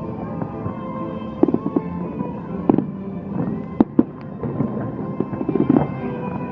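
Aerial fireworks bursting: a run of sharp bangs, some single and some in quick clusters, with a close cluster about a second and a half in and another near the end.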